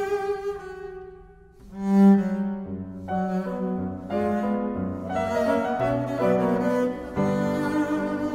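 Classical duo of bowed double bass and Bösendorfer grand piano playing. The music thins almost to a pause about a second and a half in, then comes back with a strong accented note.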